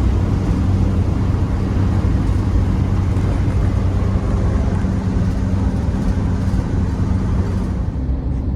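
A van on the road: a steady engine drone with a low hum, under loud road noise.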